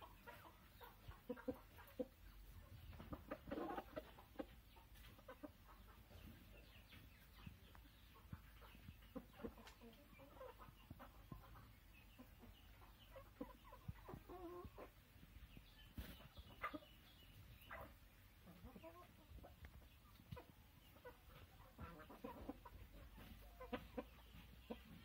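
A flock of chickens clucking quietly and intermittently as they peck and forage, with short scattered calls throughout.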